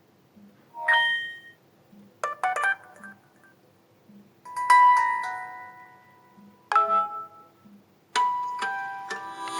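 Samsung Galaxy Feel's built-in alert tones playing in turn: about five short electronic chimes and jingles, each a second or two long and fading out, with brief pauses between them.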